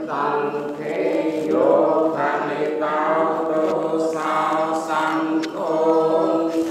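Unaccompanied Buddhist chanting by a group of voices in unison, with long held notes in phrases of about two seconds.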